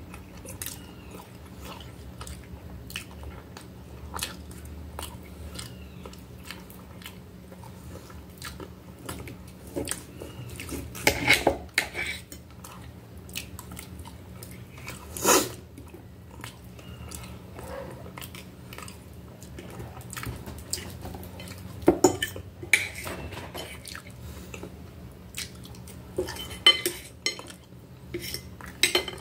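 Close-up eating sounds: metal cutlery clinking and scraping against a glass plate, with chewing in between. A few sharper clinks stand out, about 11, 15, 22 and 27 seconds in.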